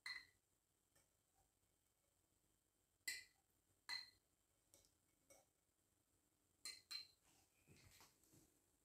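Faint, sharp metallic clinks, five or six spread over several seconds, each ringing briefly, from a stainless steel cooking pot with desi ghee melting in it.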